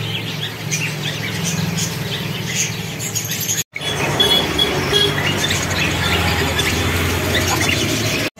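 Small caged birds, budgerigars among them, chirping and twittering in many short high calls over a steady low hum; the sound breaks off for a moment about a third of the way in.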